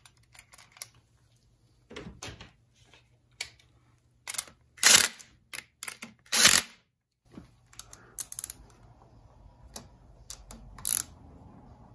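Cordless impact driver run in two short bursts about a second and a half apart, driving the bolts of a dirt bike's case saver, amid scattered clicks and knocks of tools and parts being handled.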